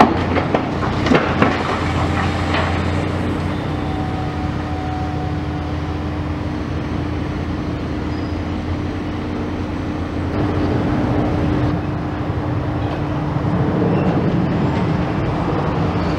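High-reach demolition excavator working: its diesel engine drones steadily while the crusher jaws break up the building. Several sharp knocks and cracks from breaking concrete and metal come in the first few seconds, and the rumble grows rougher and louder for stretches later on.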